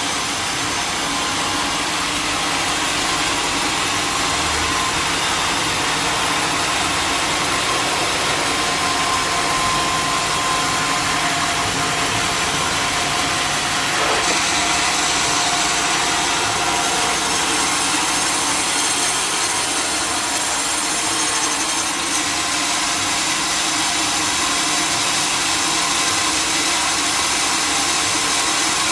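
Sawmill saw cutting wood, with the mill's machinery running steadily.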